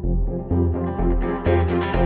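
Instrumental background music: a plucked-string part over a bass line that changes note about twice a second, growing steadily brighter as it opens up.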